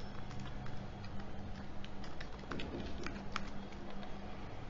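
Typing on a computer keyboard: irregular light key clicks over a faint steady low hum.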